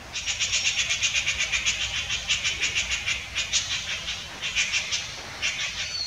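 Greater racket-tailed drongo calling: a rapid run of short high notes, about seven or eight a second, with a brief break near the end.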